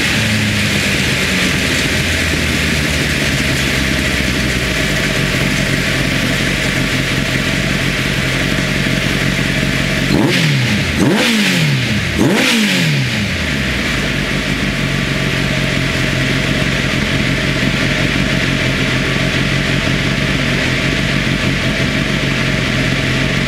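Honda X-4's 1284 cc inline-four, fitted with FCR 41 mm carburettors and an Earls Gear Wyvern exhaust, running steadily. Near the middle it takes three quick throttle blips, the revs rising and falling each time, then settles back to a steady note.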